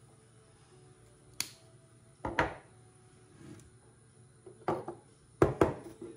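Kitchenware knocking and clinking on a wooden tabletop as a spice shaker is set down and dishes are handled: a sharp click a little over a second in, then three pairs of knocks, the last pair near the end the loudest.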